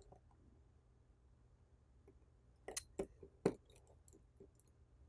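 A small screwdriver ticking against the metal home-button plate of an iPhone 6s screen as its tiny screws are backed out. It is faint at first, then gives a few sharp clicks about three seconds in.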